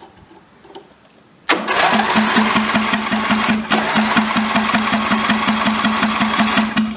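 Briggs & Stratton lawn tractor engine cranked by its electric starter, starting abruptly about a second and a half in and chugging in an even rhythm for about five seconds without catching. The carburettor's float bowl has no fuel in it.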